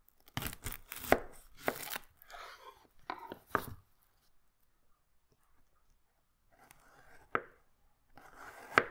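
Firebox Folding Chef Knife cutting through a whole yellow onion on a cutting board: crunching of the papery skin and flesh, with sharp knocks as the blade meets the board, in a run of cuts over the first four seconds. Then a lone cut about seven seconds in and another near the end as the halves are sliced.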